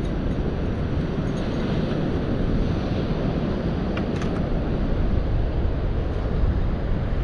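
Wind buffeting the microphone over the steady wash of ocean surf, with a faint tick or two about four seconds in.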